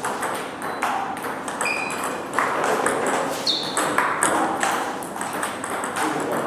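Table tennis rally: the plastic ball clicking off the bats and the table in quick succession, one bat faced with Sauer & Tröger Schmerz OX pimples rubber, with further ball clicks from other tables in the hall. Two brief high squeaks come about two seconds and three and a half seconds in.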